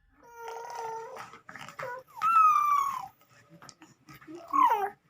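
A small child's hoarse voice in four short whiny calls, several falling in pitch, the loudest about two seconds in. The voice is nearly gone from a cough.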